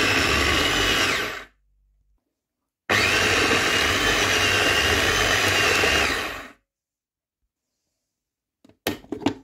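Food processor motor running loud and steady with a high whine as it purees green seasoning. It runs in two spells, cutting off about a second and a half in and again at about six and a half seconds. A few sharp clicks come near the end.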